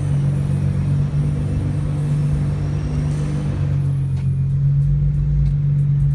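Nissan GT-R running steadily at low revs, with a faint high-pitched brake squeal from its Ferodo DS2500 pads on Rotora discs that dies away a little past halfway. A few light ticks follow near the end.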